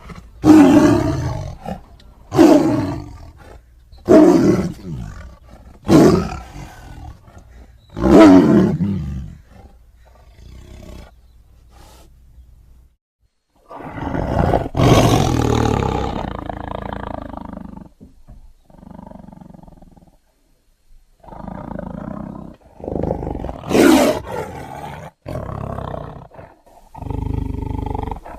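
Animated sea-monster roar sound effects: five short roars about two seconds apart, each sliding down in pitch, then after a pause one longer roar, and a run of shorter roars near the end.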